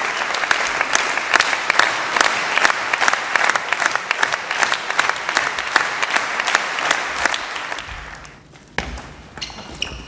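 Audience applauding, a dense patter of hand claps that fades out about eight seconds in. Near the end come a few sharp, separate clicks of the celluloid table tennis ball as play resumes.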